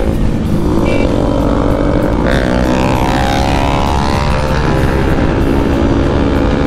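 Motorcycle engine through a loud exhaust, accelerating: its drone climbs steadily in pitch from about two seconds in. Wind rush on the microphone runs underneath.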